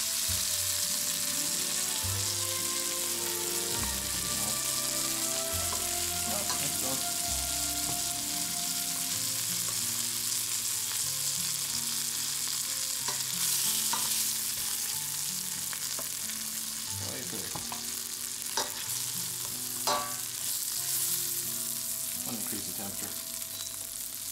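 Chicken thighs and breasts, dredged in seasoned flour, sizzling steadily as they brown in butter in a frying pan. A few sharp clicks of metal tongs against the pan come about two-thirds of the way in, as pieces are lifted out.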